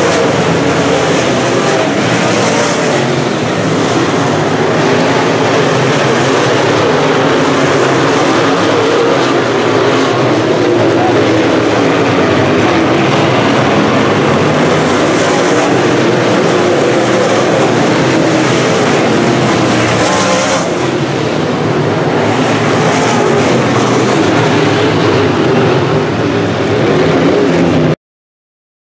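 Several UMP dirt modified race cars' V8 engines running together on the dirt oval, a loud steady drone. It cuts off suddenly near the end.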